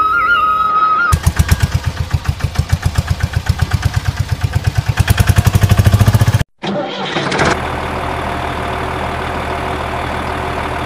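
Tractor engine cranking and starting, with loud regular chugs that quicken. After a brief break it runs at a steady idle. A second of flute music comes before it.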